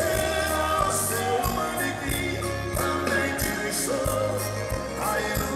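Sertanejo band playing live: male voices singing a melody over acoustic guitars, bass and drums with a steady beat.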